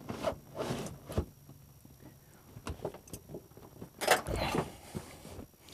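Seat of a Sling 2 light-sport airplane being worked on its rails by hand: scattered clicks and knocks from the seat-adjust lever and the seat sliding, with the loudest cluster of knocks about four seconds in.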